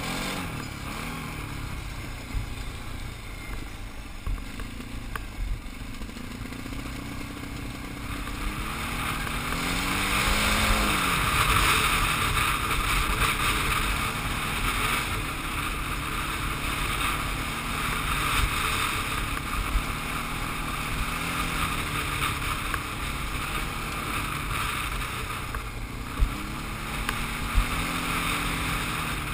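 Quad ATV engine running as it is ridden, its revs rising and falling several times as the rider accelerates and eases off. Wind rushes over the microphone, stronger from about a third of the way in, and there are a couple of sharp knocks near the end.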